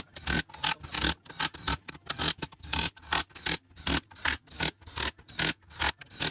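Cordless DeWalt impact wrench running down the housing bolts on a Jatco JF011E CVT case during reassembly, in short repeated trigger bursts about three a second.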